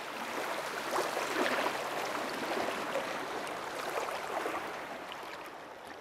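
Shallow seawater washing and lapping over sand at the water's edge, a steady watery hiss with small irregular splashes, easing off slightly near the end.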